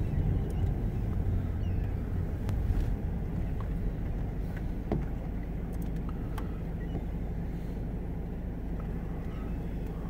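Steady low rumble of a car heard from inside the cabin, with faint, scattered calls from a large flock of gulls outside.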